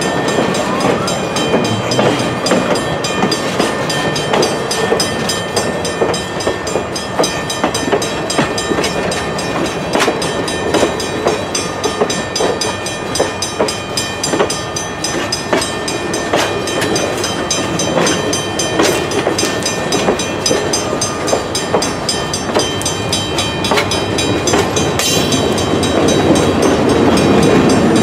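Train cars rolling slowly past at close range: steel wheels clicking over the rail joints with a thin, high metallic ringing from the wheels. Near the end it gets louder and heavier as the Southern Pacific diesel locomotive comes alongside.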